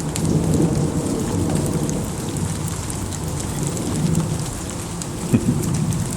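Rain falling steadily in a shower, with scattered drops ticking and a low rumble underneath.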